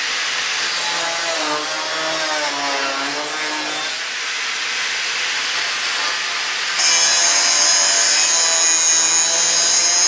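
Angle grinder cutting through rusted steel of a tractor trailer's frame, its motor whine dipping and recovering in pitch as the disc bites. From about seven seconds in the whine is steadier and higher.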